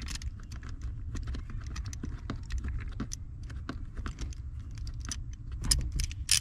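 Irregular light metallic clicks and rattles of small hardware being handled, a wire's terminal, nut and socket being fitted onto a terminal stud, over a low steady rumble, with a louder cluster of clicks near the end.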